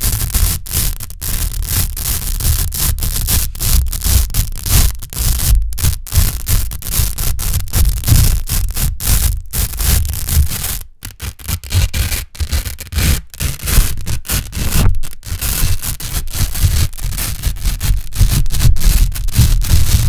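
Hook-and-loop (Velcro) tape, a blue loop strip and a white hook strip, worked close on the microphone: a continuous loud, crunchy, scratchy crackle broken by many brief gaps, with a short lull about eleven seconds in.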